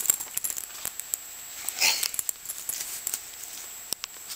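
Small dogs playing, with scattered light clicks and scuffles and a short breathy snuffle about two seconds in.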